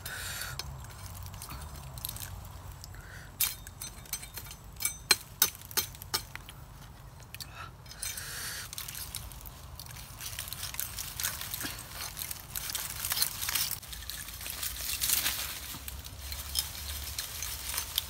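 Machete chopping at the stalk of a snake fruit (salak) cluster: about five sharp chops between three and six seconds in, then longer rustling and scraping with fine crackles.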